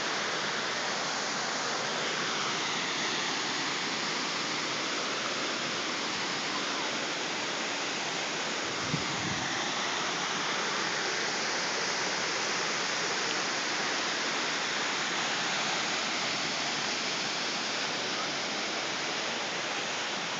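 Waterfall: a steady, unbroken rush of falling water, with one brief low thud about nine seconds in.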